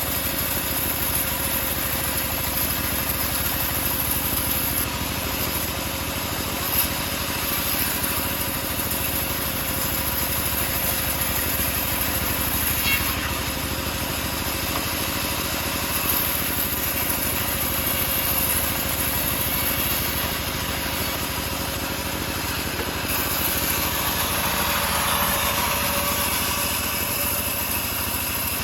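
Homemade engine-driven bandsaw running steadily while sawing teak, a constant engine drone with a steady whine from the blade.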